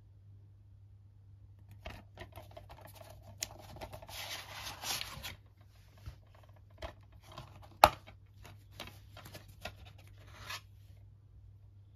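Hands handling a plastic DVD case and its cardboard sleeve: a stretch of scraping and rubbing, then one loud sharp click about halfway through as the case snaps open, followed by lighter clicks and rustles that stop a second or so before the end.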